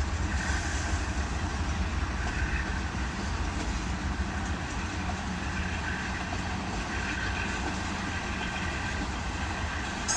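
Loaded ethanol tank cars of a Providence and Worcester freight train rolling past, a steady rumble of steel wheels on the rails.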